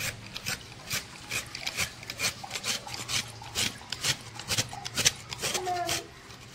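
Fresh coconut flesh being scraped out of a half shell with a hand-held metal scraper: rasping strokes, about three a second.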